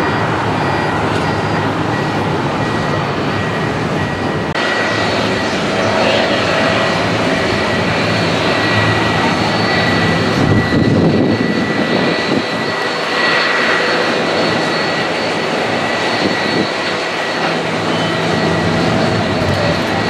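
Boeing 757 jet engines running at taxi power: a steady high whine over a broad rush of jet noise, with an abrupt shift in the sound about four and a half seconds in.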